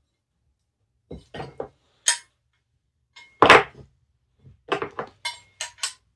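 Plasma-cut, hand-bent sheet-steel bracket pieces clinking and knocking together and on a wooden workbench as they are fitted to each other: a few light knocks, one louder clack about three and a half seconds in, then a quick run of ringing clinks near the end.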